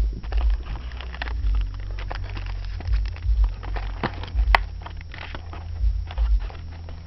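Hands opening a trading-card hobby box and its packs: irregular crackling and crinkling of wrapper and cardboard, with scattered sharp clicks and low handling rumble.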